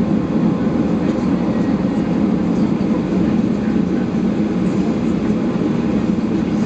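Steady, loud rumble of a Boeing 737 airliner's jet engines and airframe, heard from inside the passenger cabin.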